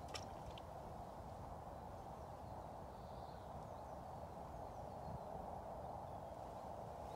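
Steady outdoor ambience at the waterside: an even rushing noise with no distinct events, a couple of light clicks right at the start, and a few faint bird calls in the middle.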